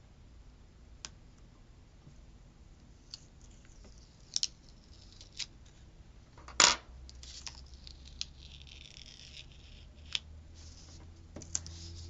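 Handling of paper planner stickers on the page: scattered light clicks and taps, one sharper tap a little past halfway, and short soft rustling and scraping as the sticker is worked off the paper.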